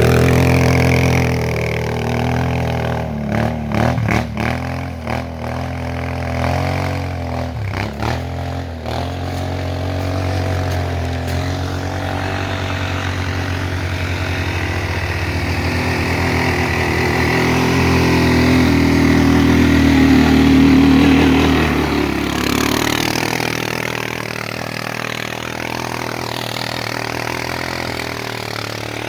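Suzuki ATV engine running, its pitch dipping and picking up again several times in the first third. It then runs steadier, builds for a while and eases off about two-thirds of the way through.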